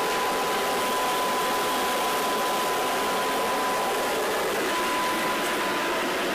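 1-horsepower centrifugal blower running at full speed: a steady rush of air with a constant high whine.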